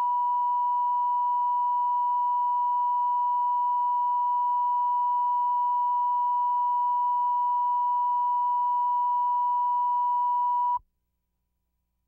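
Steady 1 kHz line-up test tone, the reference tone laid down with colour bars at the head of a video tape. It holds unbroken at one pitch and cuts off abruptly near the end.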